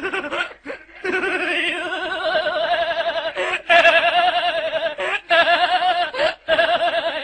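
A person laughing: a high, rapidly pulsing laugh held in long runs, broken every second or two by short pauses for breath.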